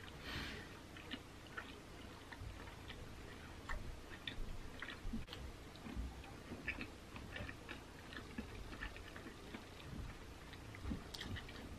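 Faint chewing of pizza with the mouth closed: soft, irregular wet clicks and small crunches of the crust.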